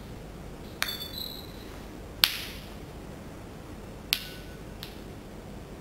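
Dried toi ting (Ruellia tuberosa) seed pods bursting open one by one in water, flinging their seeds: four sharp pops, the loudest a little past two seconds in, the first followed by a brief high ring.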